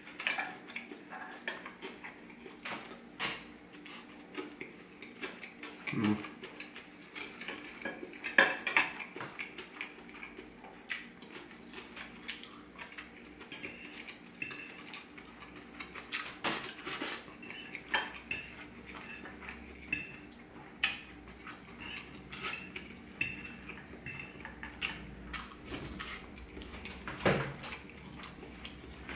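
Metal fork and knife clinking and scraping against a plate as chicken and rice are cut and scooped, in irregular separate clinks.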